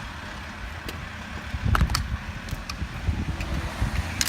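Low rumble of road traffic going past, growing louder about a second and a half in, with a few light clicks and knocks.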